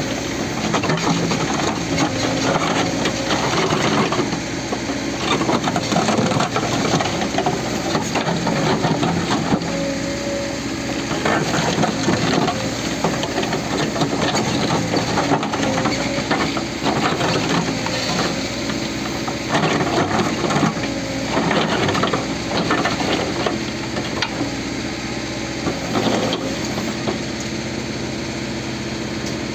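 Caterpillar 434E backhoe loader's diesel engine running steadily under load, with irregular clatter and crunching of soil and rock as the machine digs and levels.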